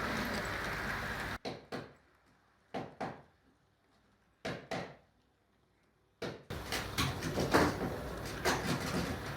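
Train wheels clacking over rail joints: three pairs of sharp clicks about a second and a half apart, between stretches of steady running noise that drops away about a second and a half in and returns about six seconds in.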